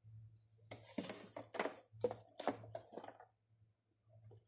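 Brake pads being wiped and handled during cleaning: a run of about seven short scrubbing and knocking strokes, starting about a second in and stopping a little past three seconds, over a steady low hum.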